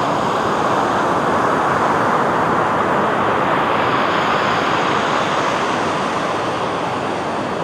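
Sea surf washing onto a beach in a steady rush, swelling slightly in the first few seconds and easing a little near the end.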